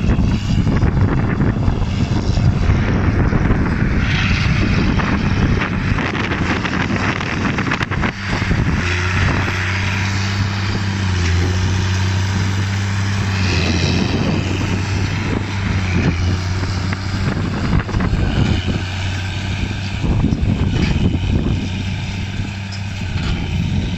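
Ford TW-35 tractor's turbocharged six-cylinder diesel engine working steadily under load as it pulls a Massey Ferguson 190 large square baler. The engine drone is clearest about a third of the way in, as the tractor passes close.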